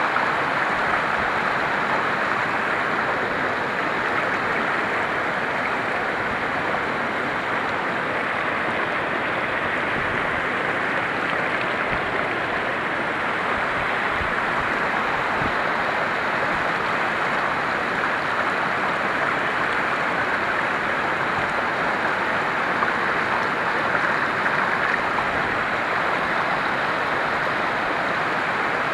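Mountain stream rushing over boulders and small cascades: a steady, unbroken rush of water close by.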